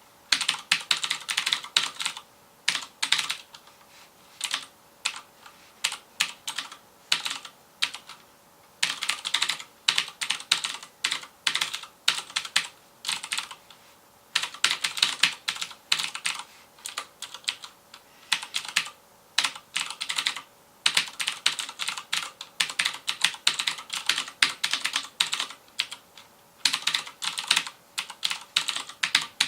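FILCO Majestouch Convertible 2 mechanical keyboard with Cherry MX Blue switches being typed on fast: runs of rapid, clicky keystrokes broken by short pauses.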